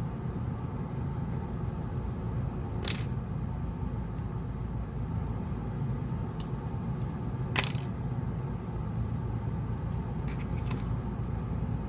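Small hard metallic clicks and clinks of tools and tiny parts being handled while a smartphone is taken apart: two sharp clicks about three and seven and a half seconds in, with a few fainter ticks between and near the end, over a steady low hum.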